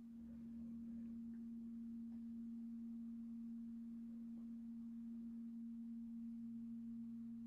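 A steady low hum, one pure tone held without change, with a fainter lower tone joining about six seconds in.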